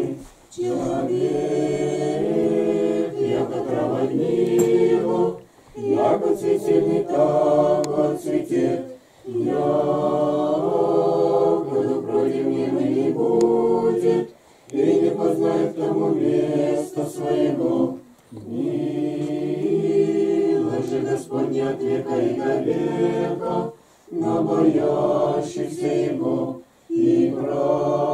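A small group of men and women singing an Orthodox prayer together without instruments: a short sung phrase repeated over and over, with brief breaks between the phrases.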